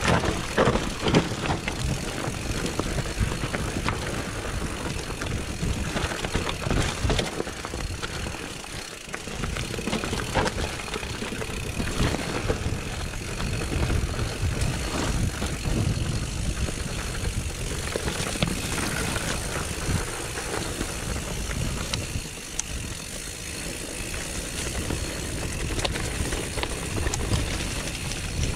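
Mountain bike riding down a rocky technical trail: a constant clatter of tyres over stones and the bike rattling and knocking over bumps, over a low, uneven rumble.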